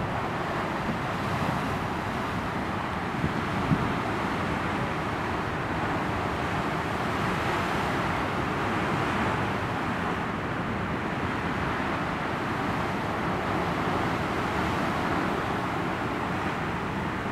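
Ocean surf breaking over rocky ledges: a steady rush of churning white water that swells and eases as the waves come in. A brief knock about three and a half seconds in.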